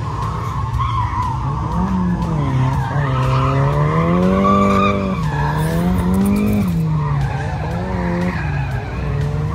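Drift car's engine revving up and down in long swells of throttle while its tyres skid and squeal through the corners.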